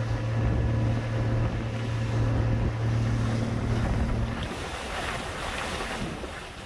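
Boat engine running with a steady low drone over rushing water and wind on the microphone. The drone stops about four seconds in, leaving the splash and hiss of the wake.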